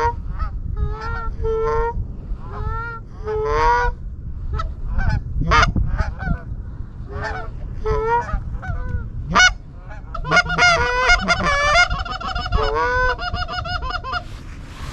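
Canada geese honking, short two-note honks that come thick and overlapping for a few seconds about ten seconds in, as a flock comes in over the decoys.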